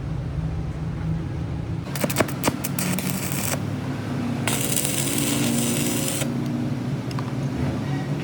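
Metal parts clinking and knocking over a steady machine hum, with a hiss of about a second and a half in the middle.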